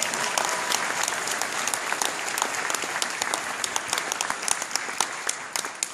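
Audience applauding: a dense clatter of many hands clapping that slowly thins out and grows quieter, ending in scattered single claps.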